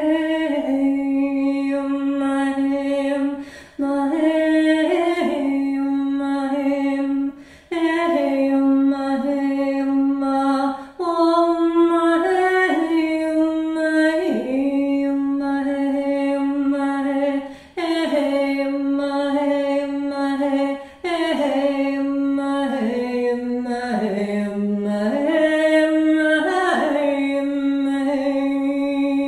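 A woman's voice singing long, wordless, unaccompanied tones, each note held about three seconds with a short breath between, sliding from one pitch to the next and dipping lower for a moment near the end.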